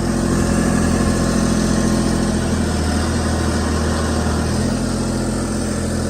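Ditch Witch SK800 mini skid steer's engine running steadily while the loader bucket scoops compost, its note changing about four and a half seconds in.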